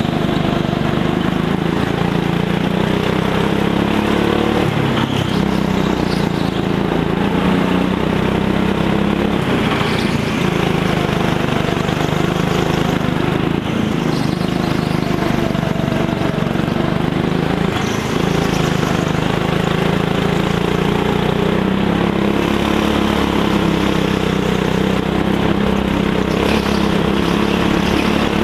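Go-kart engine running hard, heard up close from on board the kart, its note wavering up and down with the throttle through the corners.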